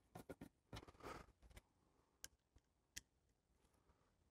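Faint clicks of a screwdriver tip and a small screw in a plastic carburettor's mounting hole as the screw is started. There is a quick run of ticks in the first second and a half, then two lone clicks about two and three seconds in.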